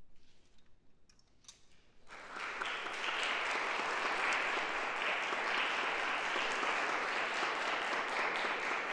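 Audience applause that breaks out about two seconds in and then holds steady, with a few faint clicks before it.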